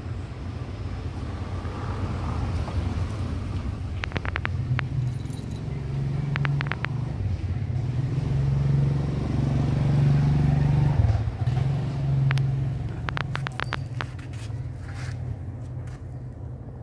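A motor vehicle engine running nearby, a steady low rumble that swells to its loudest a little past the middle and then fades. Three short runs of quick ticks sound over it, about 4, 6.5 and 13 seconds in.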